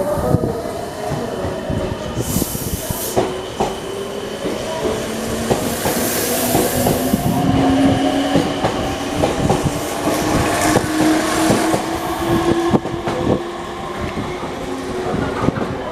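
Meitetsu 3100-series electric train pulling out of the station: the motor tones climb slowly as it gathers speed, with wheels clicking over rail joints and points. There are short bursts of hiss along the way.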